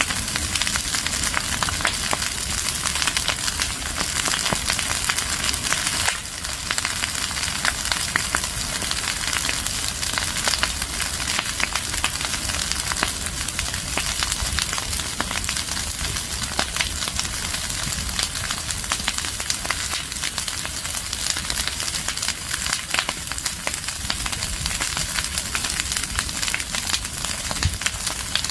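Open fire of dry leaves and branches burning, with dense crackling and popping over a steady hiss.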